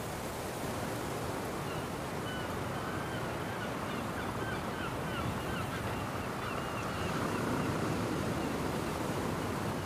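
Steady seaside wind and surf noise. From about two and a half seconds in, short bird calls repeat over it.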